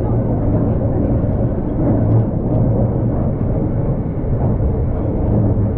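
Old tram running, a steady low rumble.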